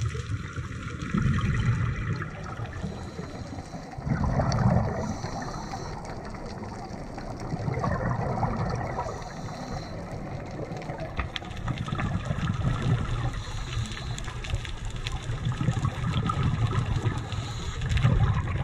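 Underwater water noise on a diving camera: a steady rushing hiss, with a louder low bubbling surge about every four seconds.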